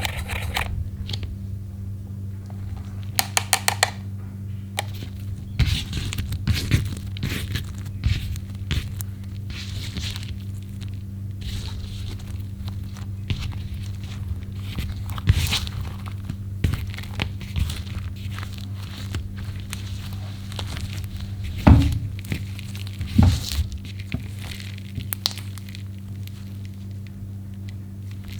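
Clear slime being worked by hand with makeup mixed in: sticky clicks, crackles and squelches, with a quick run of clicks a few seconds in and two heavier thumps near the end, over a steady low hum.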